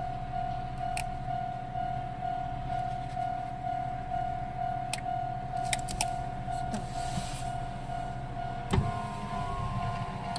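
Level crossing warning bell ringing in a steady, rapidly repeating tone over the low rumble of an arriving train. Near the end comes a sharp thump, followed by a slowly falling whine.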